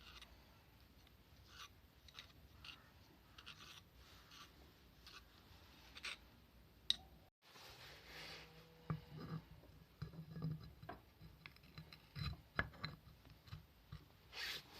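Faint hand-work sounds on small parts: rubbing and scraping, scattered light clicks, and a few soft knocks in the second half.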